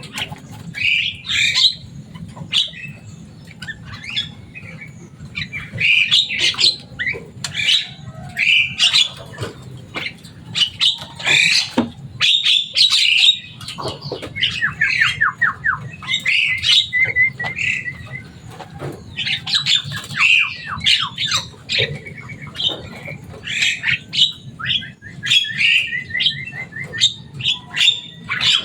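Javan myna calling continuously: a varied jumble of harsh squawks, whistles and rapid chattering runs of clicking notes.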